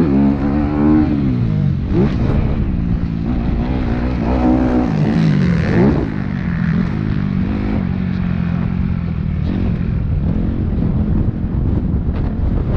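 Motocross bike engine heard from the rider's own bike, revving up and down as the rider accelerates, shifts and backs off over the track, with a steadier pull in the second half and a few short knocks near the end.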